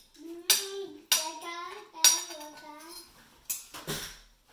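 A child singing a short wordless tune in a wavering voice, with three sharp jingling hits in the first two seconds, then a brief rustling knock near the end.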